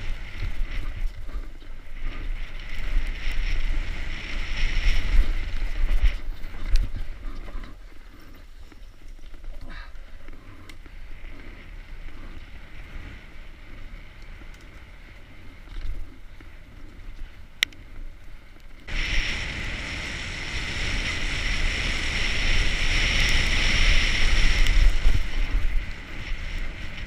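Wind buffeting a helmet-mounted camera's microphone, with a mountain bike rattling and its tyres rumbling over a dirt forest trail at speed. Quieter through the middle, then a sudden louder hiss about two-thirds through that lasts several seconds.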